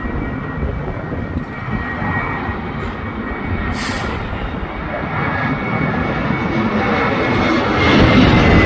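Jet aircraft engines running, growing gradually louder, with a thin steady high whine that drops slightly in pitch near the end. A brief hiss about four seconds in.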